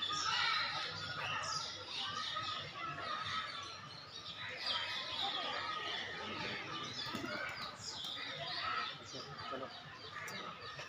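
Many small birds chirping and calling together, a dense, continuous mix of short high chirps and quick sweeps.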